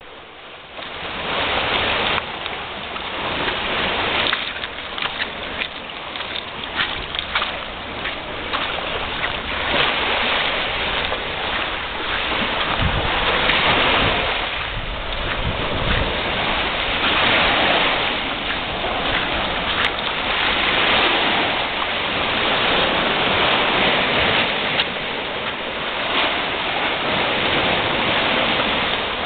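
Small waves breaking and washing up on a sandy, rocky shore: a steady rushing surf that swells and eases every few seconds, with a couple of brief wind buffets on the microphone about halfway through.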